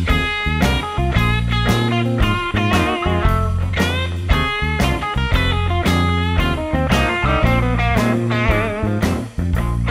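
Background music: a blues-rock track led by electric guitar with bending notes over a steady beat.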